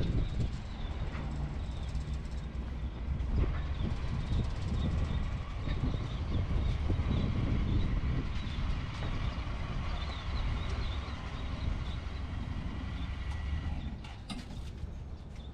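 Engine of a side-by-side utility vehicle running, a steady low rumble with a faint higher hum, and a few faint high chirps in the middle.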